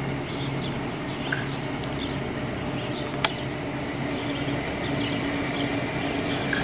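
Steady low hum over a haze of background noise, with birds chirping now and then and one sharp click about three seconds in.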